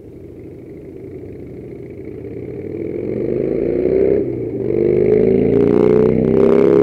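A motor vehicle accelerating close by, its engine rising in pitch, dropping once about four seconds in as it shifts gear, then rising again. A rush of noise near the end as it goes past.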